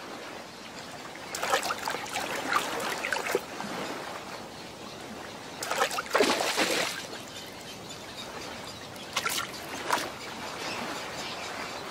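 Shallow water splashing and trickling as a wading egret stirs it up and strikes at small fish. It comes in three short bouts, the loudest about six seconds in.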